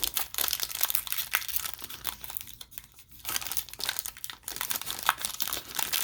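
Trading-card pack wrapper crinkling and tearing as it is opened by hand, with a short pause about halfway through.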